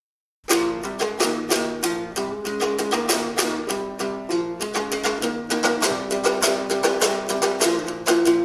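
Kyrgyz komuz, a three-stringed long-necked lute, strummed with rapid, dense strokes that start suddenly about half a second in: the instrumental opening of a terme, before the singing begins.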